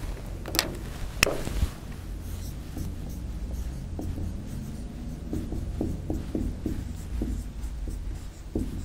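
Marker pen writing on a whiteboard: a run of short, quick squeaky strokes as letters are drawn, starting about four seconds in, after a couple of sharp clicks.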